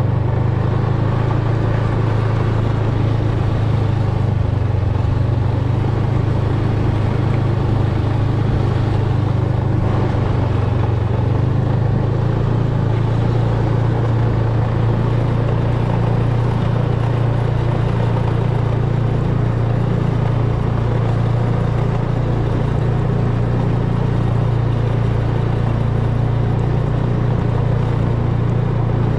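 Snowmobile engine running in a steady, unbroken drone.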